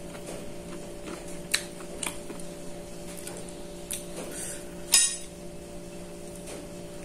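Light clinks and knocks of china plates, with crisp fried tempe being picked up by hand. A few sharp clicks, the loudest about five seconds in, sound over a steady low hum.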